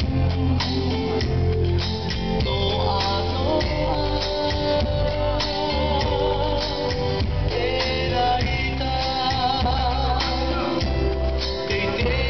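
Song with a singer over guitar and a steady bass beat, playing on without a break.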